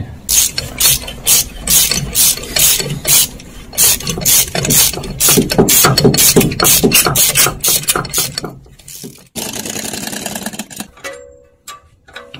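Hand socket ratchet turning a bolt on the underside of a Mitsubishi Pajero: a fast, uneven run of sharp clicks, cut off about nine seconds in by a steadier noise.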